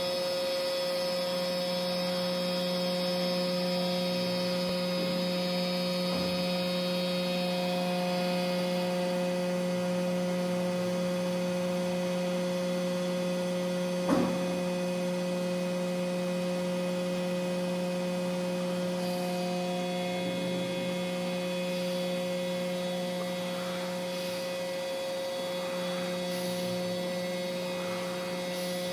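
Steady electrical hum on a few fixed pitches, with a brief higher tone now and then and one sharp knock about halfway through.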